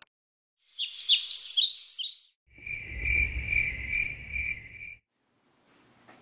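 Nature sound effects: a short burst of quick, high bird chirps, then crickets chirping in a steady pulsing trill over a low rumble for about two and a half seconds, stopping abruptly.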